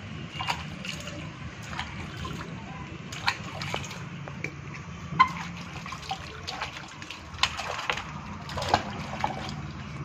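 Water splashing and sloshing in a plastic bucket as hands scoop it over a rooster being bathed. The splashes come irregularly, the loudest about five seconds in, over a steady low hum.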